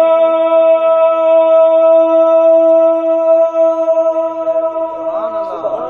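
A man's voice holding one long, steady sung note in a naat recitation, amplified through a handheld microphone, wavering and breaking off near the end.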